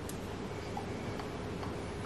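A few faint, light ticks of a wire whisk and spoon touching a glass mixing bowl, spread about half a second apart, over a faint steady hum.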